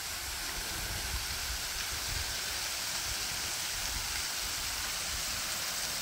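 Waterfall spilling over a tall rock ledge onto the rocks below: a steady rushing hiss of falling water.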